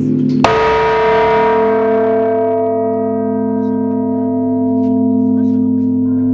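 A bell, already humming, is struck once about half a second in; its many overtones ring on and slowly die away, the higher ones first, while the low hum carries on steadily.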